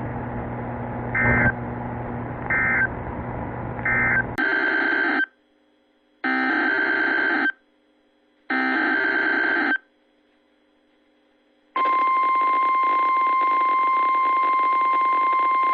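Emergency Alert System data tones from a NOAA Weather Radio broadcast. First come three short end-of-message bursts over steady radio hiss. Then, after an abrupt cut, three SAME header data bursts of about a second each, a second apart. About twelve seconds in, the steady 1050 Hz warning alarm tone starts.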